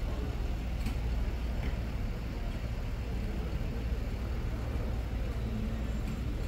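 Busy city street ambience: a steady low rumble of passing traffic.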